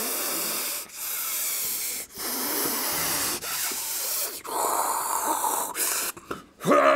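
A man making a run of breathy, hissing sounds through his mouth, about six of them, each lasting a second or so with short breaks between. Right at the end a voice rises sharply in pitch into a loud yell.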